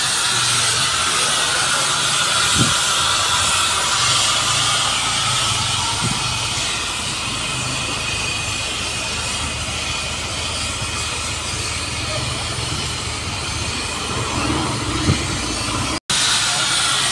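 Steam hissing steadily over a low rumble, with a few soft knocks. The sound cuts out for an instant about a second before the end.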